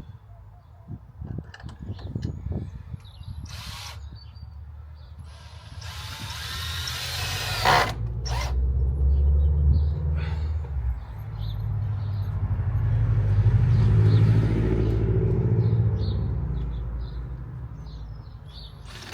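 A power drill runs in one short burst about six seconds in, its pitch dipping and rising. Low rumbling swells up and fades away twice behind it.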